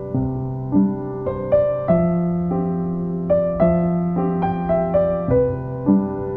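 Background piano music: a slow melody of single notes struck at an even pace over held lower notes.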